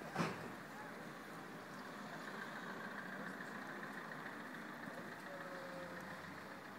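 Steady outdoor noise of vehicles running at a distance, with a single sharp knock just after the start.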